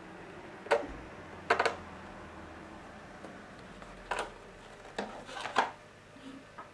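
Handling noises from a small metal bike-lamp head and its cardboard box being picked up and put down on a wooden tabletop: about half a dozen short knocks and taps at irregular intervals, two of them close together.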